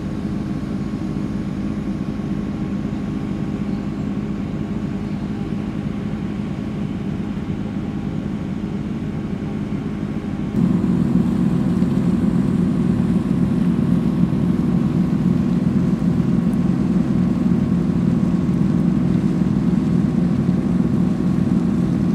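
Steady low drone of a passenger and vehicle ferry's engine, heard on board. About ten and a half seconds in it jumps suddenly to a louder, fuller drone.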